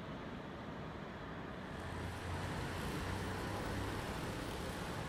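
City traffic ambience: a steady hum of road noise with low rumble, growing a little louder about two seconds in.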